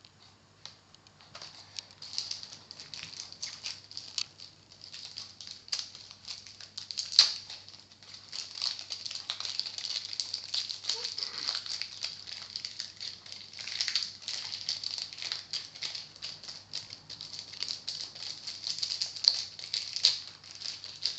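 Foil trading-card packet crinkling and crackling as hands work at it and tear it open, a dense run of small crackles with a sharper snap about seven seconds in.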